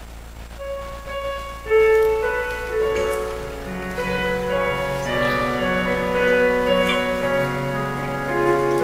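Slow instrumental keyboard music for the communion rite: held notes enter softly about half a second in, then the music swells to full level near two seconds and goes on in sustained, overlapping chords.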